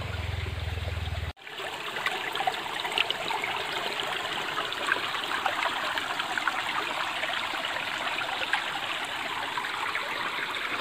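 Shallow stream running and trickling over stones. Before it, a low steady hum cuts off abruptly about a second in.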